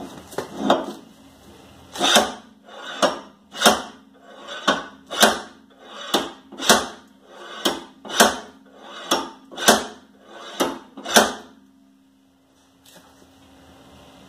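A 10-pound sledgehammer striking the seized rear wheel hub of a 2010 Toyota Prius to knock it loose. There are about twenty heavy blows at a steady pace of roughly two a second, and they stop about eleven seconds in.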